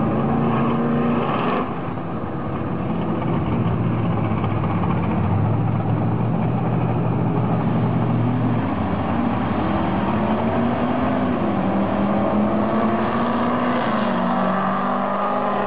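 A 2002 Ford F-250's 7.3-litre Power Stroke turbodiesel V8 and the truck in the other lane running at the drag-strip start line. About halfway through, the engine pitch starts climbing and stepping as the trucks launch and accelerate through the gears.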